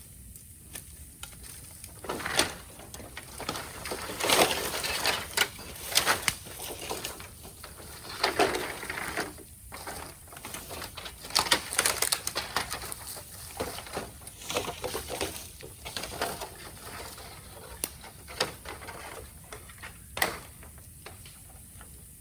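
Raw bamboo burning in a bonfire, crackling and popping irregularly.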